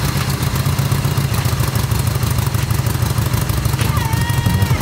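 Harley-Davidson Sportster's air-cooled V-twin idling with a fast, even, throbbing beat, moments after starting, with a new S&S Stealth air cleaner fitted.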